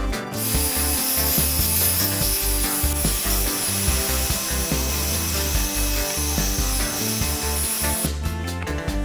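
Heat gun blowing hot air with a steady hiss and a thin high whine, shrinking heat-shrink tubing. It switches off sharply about eight seconds in. Background music with a steady beat plays underneath.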